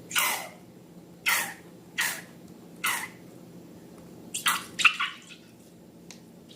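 Slime squelching: four short wet sounds roughly a second apart, each sliding downward in pitch, then a quicker run of several squelches about four and a half seconds in.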